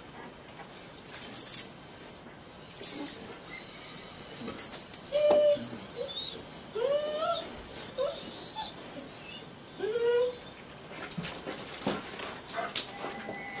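German Shepherd whining: a string of short, high, rising whimpers from about three seconds in until about ten seconds in, amid rustling. The whining is the dog's protest at being held by the collar and made to sit by the trainer.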